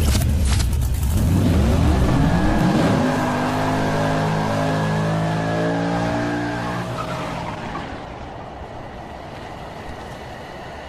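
A car engine revving up, its pitch rising over the first few seconds, then holding steady and gradually fading away.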